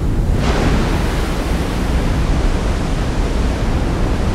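Loud rush of surging water from a tsunami wave sweeping ashore, a dense, steady wash of noise that swells about half a second in.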